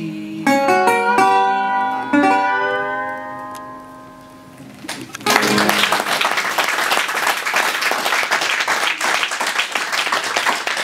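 Acoustic guitar and resonator guitar play a few closing notes of the song, which ring out and fade over several seconds. About five seconds in, the audience breaks into steady applause.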